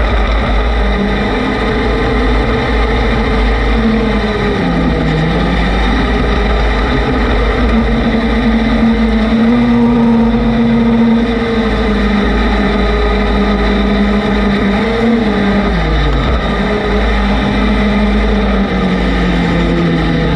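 Vehicle engine running steadily under a heavy low rumble. Its pitch sags and climbs back twice, about four seconds in and again around fifteen seconds, as the throttle eases off and is opened again.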